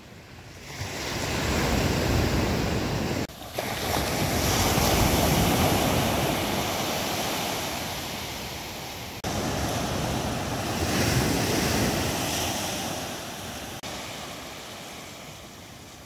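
Sea surf washing onto a beach, swelling and fading in long surges, with wind on the microphone.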